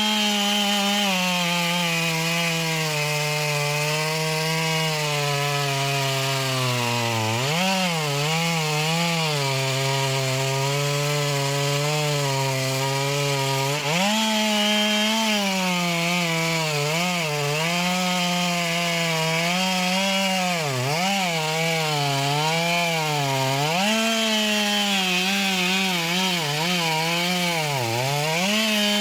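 Chainsaw cutting into a large anjili (wild jack) trunk. Its engine pitch sags under load as the chain bites, climbs sharply back a couple of times, then wavers up and down as the cut goes on.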